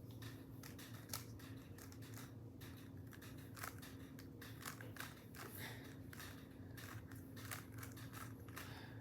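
Plastic 3x3 Rubik's cube being turned by hand: irregular quick clicks and rattles as its layers are twisted, over a steady low hum.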